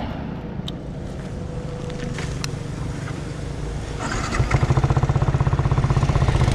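Yamaha R15 V3's single-cylinder engine running, at first a steady low rumble. About four seconds in it becomes much louder with a fast, even pulsing. This is the noise the owner presents as the bike's sound issue.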